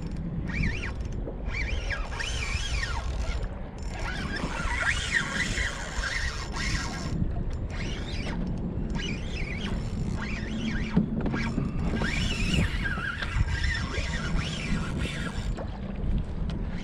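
Fishing reel and line working against a hooked fish on a bent rod, with many short, high squeaks rising and falling and a few clicks, over a steady low rumble of wind and water.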